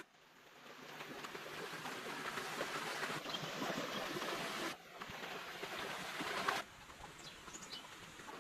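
Steady rush of running stream water, broken by abrupt cuts about five and six and a half seconds in, with a few short bird chirps near the end.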